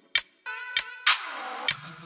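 Background electronic music in a break: after a single drum hit the beat drops out, and a sustained synth chord with a sweeping whoosh fills the gap.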